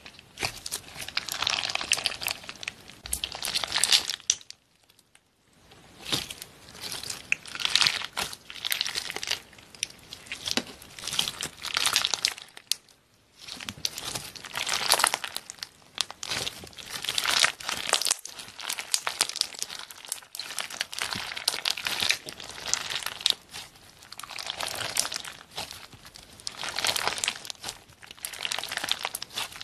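Clear slime packed with small red strawberry-shaped pieces being squeezed and kneaded by hand: crackling, crinkly squishing in irregular bursts, with two short pauses, about five seconds in and near the middle.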